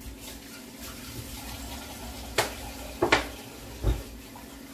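Kitchen tap running into the sink as a dish is rinsed out, with three clunks of dishes in the second half.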